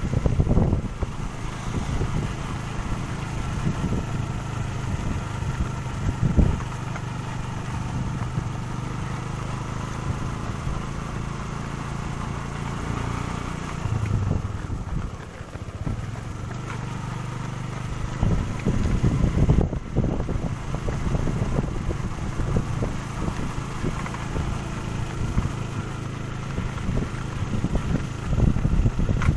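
Motor vehicle engine running steadily, with gusts of wind rumbling on the microphone, strongest about a second in, around six seconds in and again from about eighteen to twenty seconds.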